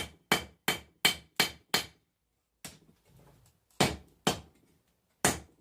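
Blacksmith's hammer striking hot 1080 steel on an anvil while forging a knife blank, each blow leaving a short metallic ring. Six quick blows at about three a second, a pause, then three slower blows.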